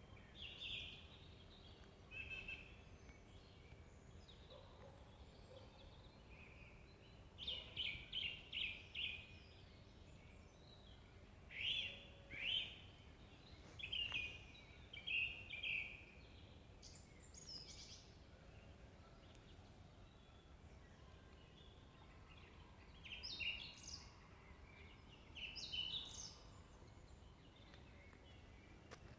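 Small forest songbirds singing and calling in short, high chirping phrases, with quiet gaps between them and a faint low background rumble throughout.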